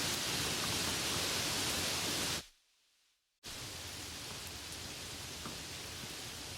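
Steady heavy rain hiss that fades out about two and a half seconds in, followed by about a second of silence; then softer rain with scattered drop ticks starts abruptly.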